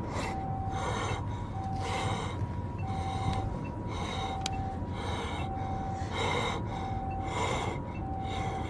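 Japanese ambulance two-tone siren ("pee-poh"), alternating a higher and a lower note about every two-thirds of a second, heard from inside the ambulance. Over it, a person gasps for breath about once a second.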